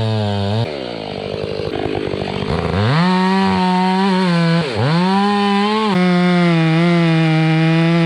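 Chainsaw running at high revs, dropping to a rough idle about a second in, then revved back up to full throttle near three seconds, with a brief dip just before five seconds, then held steady at speed. It is cutting through a large tree trunk during a felling cut.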